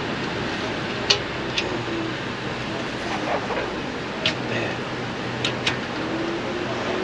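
About five sharp clicks and light knocks of a power steering cooler being pressed into its plastic retaining clips, over a steady hum.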